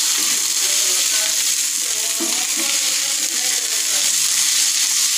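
Vegetable burger filling (grated carrot, tomato, peas, paneer and grated cheese) sizzling steadily in oil on a tava while a wooden spatula stirs and scrapes it.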